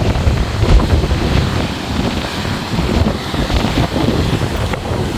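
Strong wind buffeting the microphone: a loud, gusty low rumble that rises and falls.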